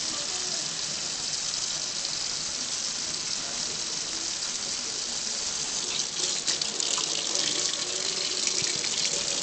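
Kitchen faucet running steadily into a stainless steel sink, the stream splashing over hands and a piece of duck being rinsed. From about six seconds in the splashing gets choppier as the hands work under the stream.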